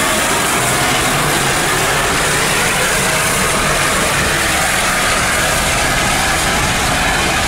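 Railway locomotive at close range, a loud, steady hiss-and-rumble with no clear beat.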